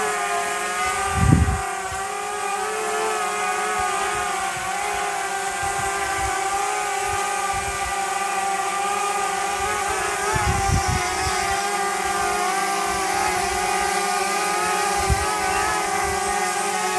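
Small DJI Mavic Mini quadcopter hovering, its four caged propellers giving a steady high-pitched buzzing hum. The pitch wavers slightly as it is flown, and there are a few brief low thumps.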